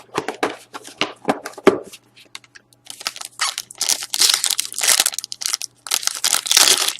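A few light clicks and taps, then from about three seconds in a dense crinkling and tearing of a sealed trading card pack's wrapper as it is opened.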